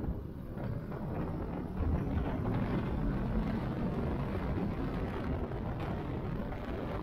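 Motorcycle running at road speed, with wind rushing over the microphone. The sound grows louder over the first two seconds, then holds steady.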